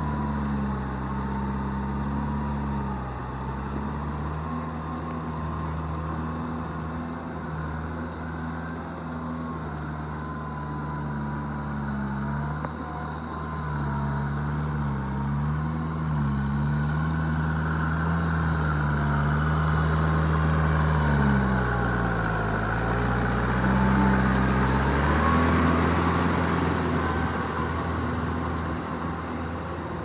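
Kubota M6240SUH tractor's diesel engine working under load as it pulls a rotary tiller through flooded paddy mud. The engine note wavers and sags in pitch for a few seconds past the middle, louder then, before picking up again.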